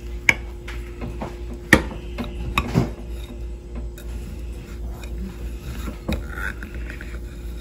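Knife cutting through a honey cake in a ceramic baking dish: a few sharp clicks and scrapes as the blade meets the dish.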